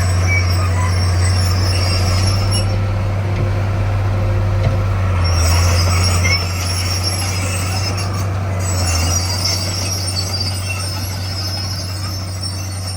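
Komatsu D41 crawler bulldozer's diesel engine running steadily, with the high squeal of its steel tracks coming and going over it.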